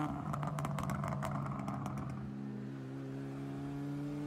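Mitsubishi Lancer Evolution IX's turbocharged 4G63 four-cylinder on the move: the engine note drops off as the throttle lifts, with a quick run of sharp crackles, then comes back in and climbs steadily in pitch.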